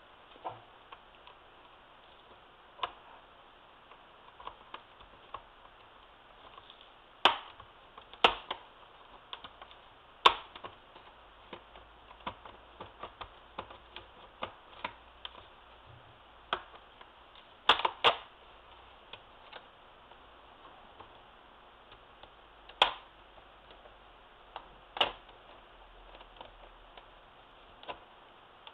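Plastic screen bezel of a Sony Vaio laptop being pried off: irregular sharp clicks and snaps as its clips let go, a few loud snaps among many light ticks.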